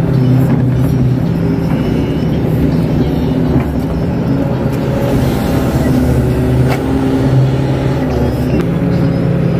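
KATO crawler excavator's diesel engine running steadily and loudly while the arm and bucket work wet mud, heard from inside the operator's cab.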